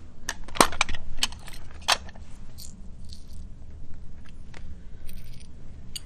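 Clicks and taps of small clear plastic parts boxes being handled and opened on a watchmaker's bench. A quick cluster of sharp clicks comes in the first two seconds, then softer, scattered taps.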